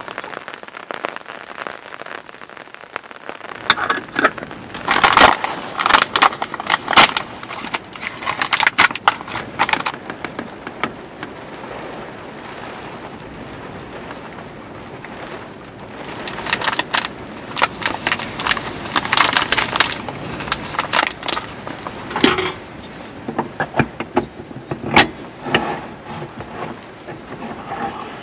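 Crinkling and rustling of a foil bag of ground coffee as coffee is poured into a moka pot's filter basket, in irregular bursts, then a few sharp clicks as the moka pot's parts are handled and fitted together. A steady hiss runs underneath.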